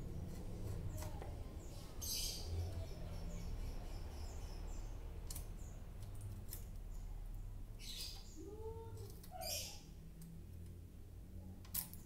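Brief scratchy rasps of fingers and a small tool working at the wooden bars and joints of a bird cage, heard about 2 s in and twice near 8–10 s. Small bird chirps sound in the background.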